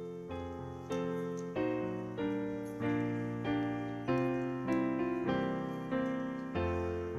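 Piano or keyboard playing slow chords alone, each chord struck and left to fade before the next, about one a second or a little faster.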